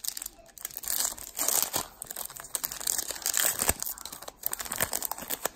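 Foil trading-card pack wrapper crinkling and tearing as it is pulled open by hand, a run of short sharp crackles.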